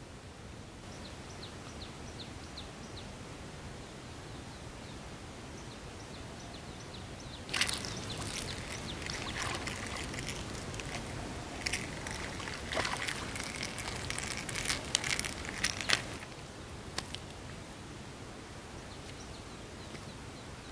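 A hooked fish splashing at the water's surface on a fishing line: a run of sloshing splashes with several sharp slaps, starting about a third of the way in and dying away a little past the middle.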